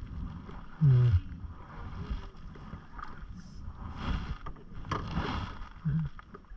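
Canoe paddle strokes in lake water, with swishing and dripping from the blade. There is a loud low knock about a second in and a smaller one near the end.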